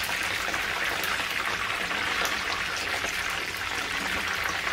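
Battered chicken pieces sizzling steadily in oil in a frying pan, with fine crackling, during the first gentle fry at medium heat.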